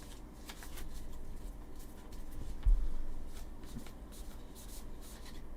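Baseball trading cards being flipped through by hand: card stock sliding and flicking against card stock in an irregular run of light ticks and swishes. There is one dull thump about two and a half seconds in.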